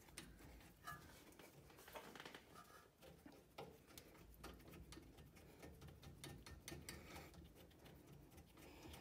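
Near silence with faint, scattered metal clicks and taps as a brake caliper and its pads and clips are worked by hand onto the caliper bracket.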